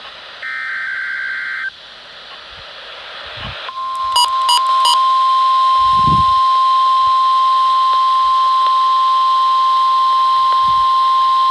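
NOAA Weather Radio broadcast heard through a radio receiver: a short burst of warbling data tones, then static hiss, then the steady 1050 Hz warning alarm tone comes on about four seconds in and holds, loud and unbroken. A few quick clicks sound just after the tone starts.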